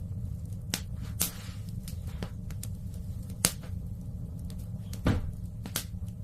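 Wood fire crackling in a fireplace: a steady low rumble of the burning fire with scattered sharp pops, the loudest about three and a half seconds in and another about five seconds in.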